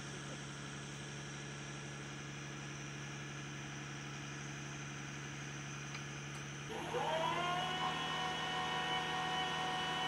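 Mobile crane's diesel engine running steadily at a low idle, then revving up about two-thirds of the way in, with a higher whine that rises quickly and then holds steady as the crane works the load.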